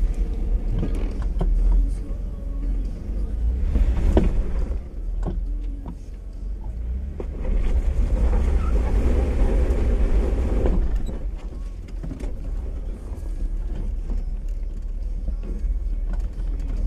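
Stock Jeep Wrangler JK's V6 engine running at low revs as it crawls slowly over rock, getting louder for about three seconds near the middle, with a few short knocks from the tires and underside on the rock.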